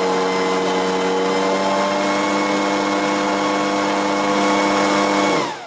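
Servo motor spinning a piece of wood in place of a blower impeller at about 3000 RPM: a steady whine with overtones. It steps up slightly in pitch about two seconds in, then winds down near the end, the pitch falling as it stops.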